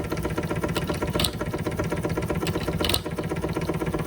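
Doll toy steam engine running steadily at speed with a fast, even mechanical clatter as it drives a Fleischmann blacksmith toy. Short, sharp, high ticks come at irregular gaps of about a second.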